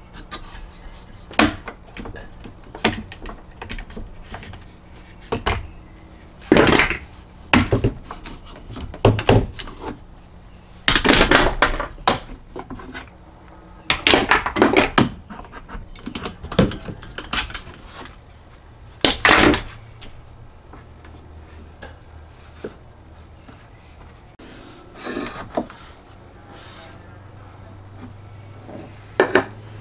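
Irregular knocks and clatters of tools and wood being handled, with several rasps lasting about a second each.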